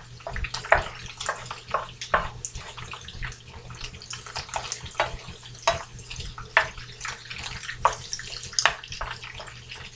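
Crumbled tofu sizzling as it fries in butter in a frying pan, stirred and scraped around by a wooden spoon, with frequent irregular knocks of the spoon against the pan.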